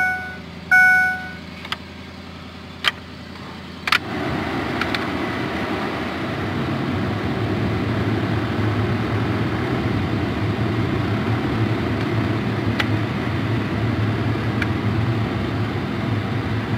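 Two short electronic beeps and a few light clicks, then from about four seconds in a 2007 Ford F-150's heater blower fan running steadily on high, with air rushing out of the dash vent. The newly fitted temperature blend door actuator is being tested, and the vent is blowing hot air.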